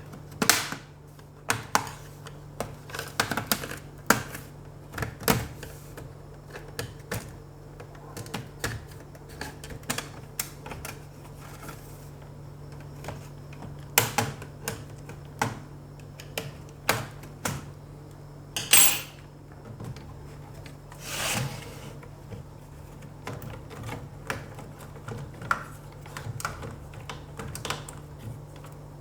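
Irregular plastic clicks, taps and short scrapes of a laptop's plastic case being pried open and handled, over a steady low hum.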